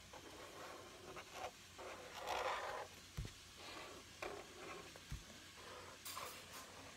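Marker scratching on paper in short, uneven strokes as a cat outline is drawn, strongest about two seconds in, with two soft low knocks in the middle.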